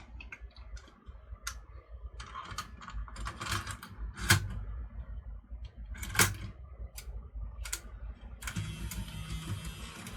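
Scattered plastic clicks and snaps from handling a Sony CCD-TRV16 8mm camcorder, two of them sharp and loud. Near the end a dense mechanical whirring with a low hum starts: the camcorder's tape-loading mechanism running.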